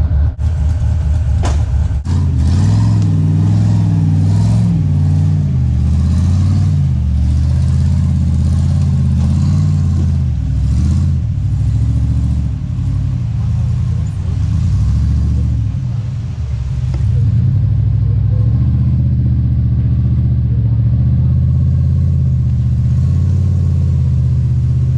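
Jeep Comanche off-road truck's engine running loudly under load, revving up and down as it crawls the trail. There are a couple of sharp knocks in the first two seconds.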